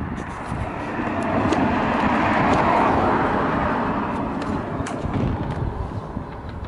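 Vehicle noise that swells to a peak about two and a half seconds in and then fades away again.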